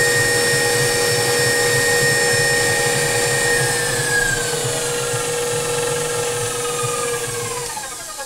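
KitchenAid Professional 5 Plus stand mixer running empty, with no load, at its top speed: a steady motor and gear whine. A few seconds in, the pitch starts to fall as the mixer slows, and it winds down to a stop near the end.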